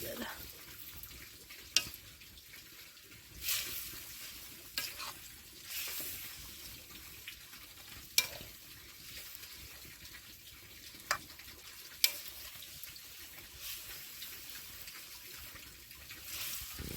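A pot of instant noodles boiling: a faint, steady bubbling hiss, with a few sharp clicks and some softer scraping sounds scattered through it.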